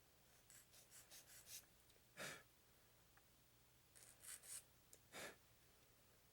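Faint quick scratchy strokes from working small plastic model-kit parts off the runner and cleaning them up, in two short runs. Two short, louder breaths out through the nose, the first about two seconds in and the second near the end.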